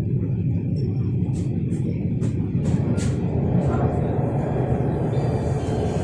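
Orange Line metro train running between stations, heard from inside the carriage: a steady low rumble with a few light clicks about one to three seconds in.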